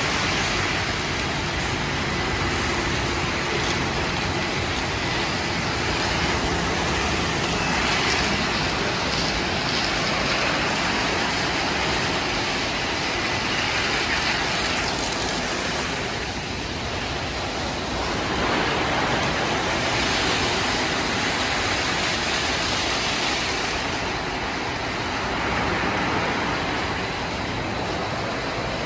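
Automated tunnel car wash running, with large cloth brushes spinning against a pickup truck: a steady rushing noise that swells and eases every few seconds.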